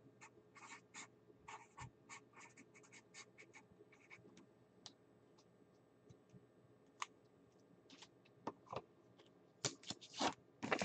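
Handwriting on a paper sticky note: a run of short, faint scratching pen strokes, followed near the end by a few louder taps and paper rustles.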